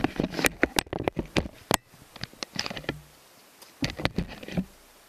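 Irregular clicks and knocks of footsteps and camera handling: a quick run in the first two seconds, a lull, then a few more about four seconds in.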